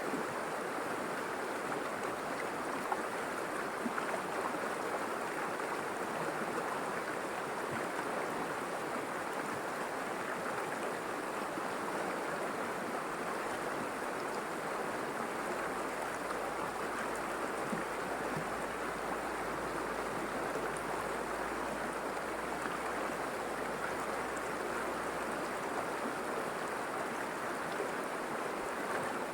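River water flowing and splashing in a steady, even rush, its sound centred in the middle range, with no break or change.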